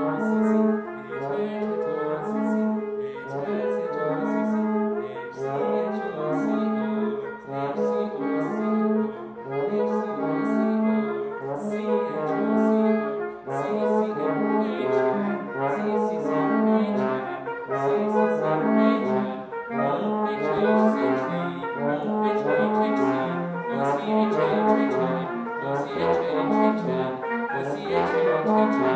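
Trumpet, trombone and bass clarinet playing contemporary chamber music: a busy pattern of short, rhythmically repeated notes, with a low note pulsing underneath through the first half.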